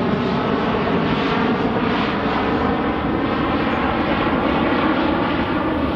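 Jet airliner passing close by, its engines making a loud, steady rushing noise.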